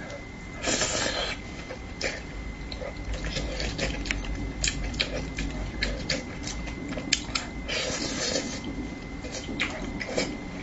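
Close-up eating sounds of braised fish: wet chewing with many small mouth clicks and lip smacks, and two loud slurps, about a second in and again near eight seconds.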